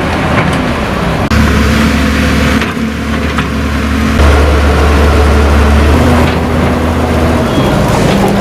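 Diesel engine of a tracked excavator running steadily under load, a low hum with a few held tones above it, which shifts suddenly in level and pitch several times.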